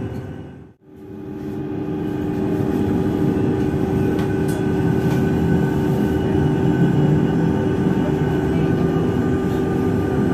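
Z 20500-series (Z2N) double-deck electric multiple unit standing with its on-board equipment running: a steady electrical hum with several held tones over a bed of noise. The sound cuts out briefly about a second in and fades back up.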